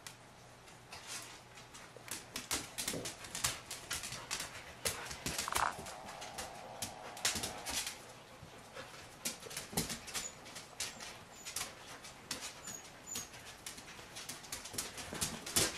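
Claws of a Samoyed and her puppies clicking and scrabbling irregularly on a hard floor as they play, with a puppy's whine held for about two seconds near the middle and a louder knock near the end.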